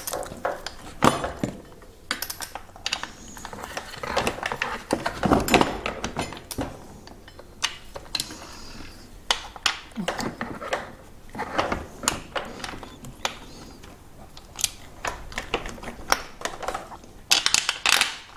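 Irregular clicks, light knocks and rattling of hard plastic and metal as a Yamaha PW-X e-bike motor is lifted into its frame mount and its cable plugs are pushed back in, with a dense flurry of clicks near the end.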